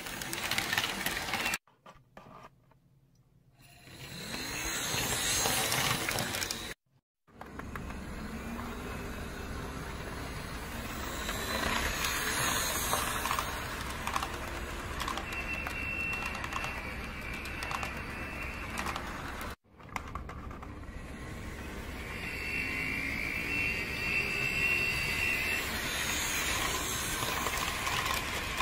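Model trains rolling past on sectional track: a small electric motor running, with wheels clicking steadily over the rail joints and a high whine coming and going. The sound cuts out briefly three times.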